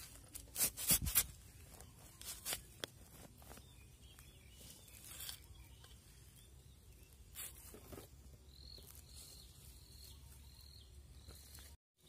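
Soil and dry leaf litter crackling and scraping as termite mushrooms are worked out of the ground by hand with a small knife, in short bursts that are loudest about a second in. Near the end comes a faint high chirp, repeated about five times.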